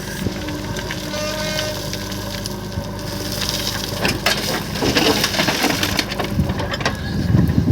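JCB 3DX backhoe loader's diesel engine running while stones grind and clatter against its steel bucket. The clattering grows rougher from about three seconds in, and near the end it becomes a louder rumble of rock.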